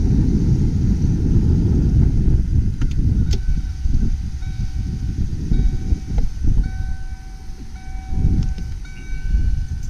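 Heavy, uneven low rumbling noise with a few knocks. From about three seconds in, a repeating electronic beep sounds, roughly once a second.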